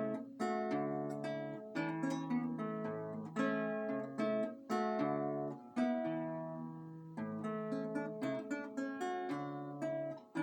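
Solo acoustic guitar playing a fingerpicked piece: plucked melody notes over repeating low bass notes, in phrases with a short break about halfway through and another near the end.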